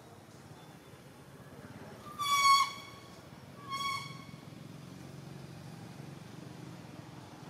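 Two short, high-pitched squeals about a second and a half apart, the first louder and dropping in pitch at its end, over a low rumble that slowly grows.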